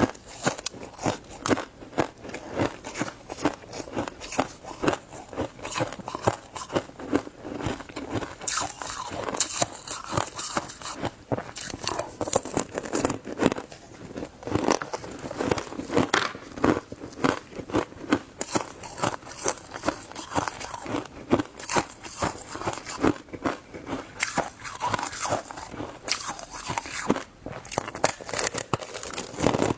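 Close-miked biting and chewing of crunchy shaved ice: a dense, irregular run of sharp crunches and crackles.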